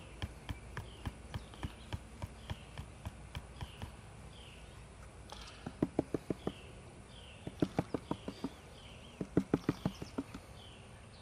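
Green plastic gold pan with fine black sand concentrate in it being tapped by hand: fainter taps about three a second at first, then from about halfway four quick runs of five or six sharp taps each. Short high falling chirps repeat in the background.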